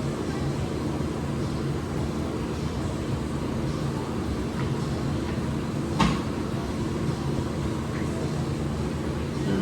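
Steady low rumble of gym room noise, with one sharp knock about six seconds in.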